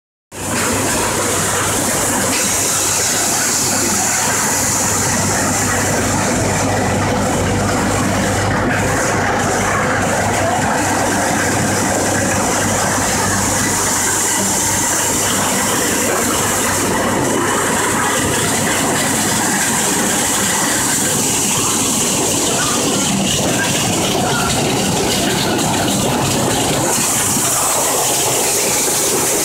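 Garlic colour sorter and its feed conveyor running: a steady, loud machine din with a constant hum and a hiss, as garlic rattles through the line.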